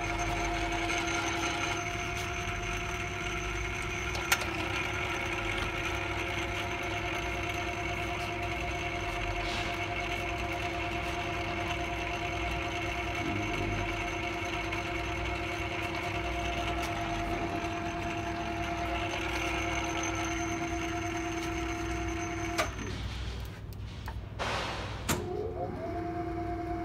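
Feeler toolroom lathe running: a steady hum with a constant whine from the spindle drive. About 23 seconds in it stops, a few clicks and knocks follow as the controls are worked, and it starts up again near the end.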